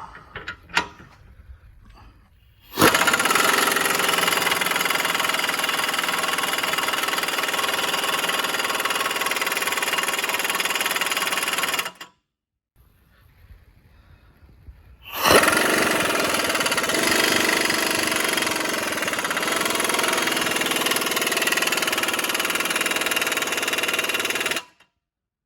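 Power impact wrench hammering on a ball joint press screw, pressing a new ball joint into a Mercedes W211 control arm. It runs in two long bursts of about nine seconds each, with a short break between them.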